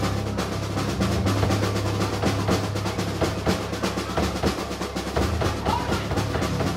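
Live rock band playing an instrumental stretch: fast, busy drumming with snare rolls over electric guitar and bass.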